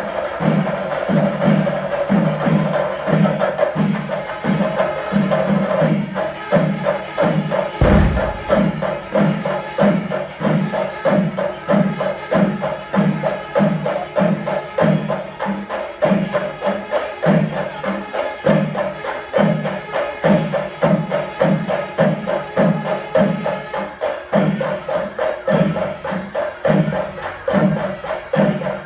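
Kerala chenda melam: chenda drums beating a steady, driving rhythm at about two to three strokes a second, with cymbals clashing. A held tone sounds over the first few seconds, and a single low thud comes about eight seconds in.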